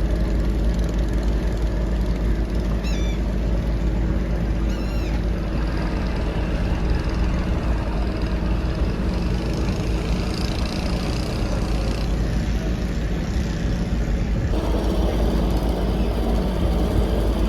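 Steady low rumble of a river ferry's engine underway, mixed with wind buffeting the microphone.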